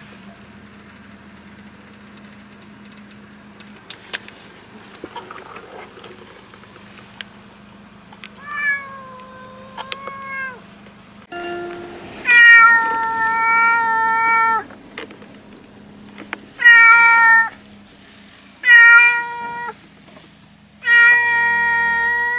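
Brown tabby cat meowing loudly: a couple of shorter meows about eight seconds in, then four long, drawn-out meows one after another, the calls of a cat that dislikes car rides.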